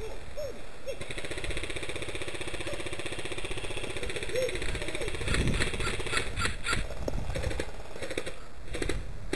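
Airsoft electric gun firing a long full-auto burst, a fast even rattle lasting about five seconds, followed by several sharp separate cracks.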